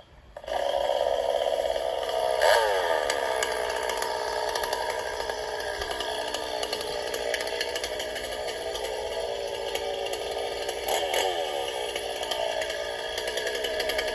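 Gas chainsaw running at idle, with two brief revs, about two and a half seconds in and again near eleven seconds, the engine note falling back to idle after each.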